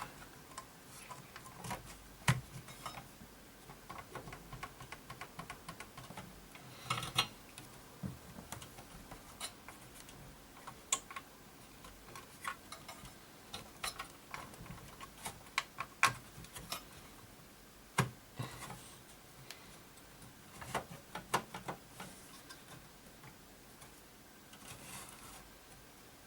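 Scattered light clicks and taps of small computer parts and plastic being handled and fitted, irregular and a few a second at the busiest.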